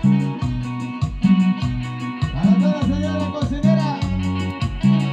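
Latin dance music with bass and guitar over a steady beat; a wavering lead melody comes in about halfway through.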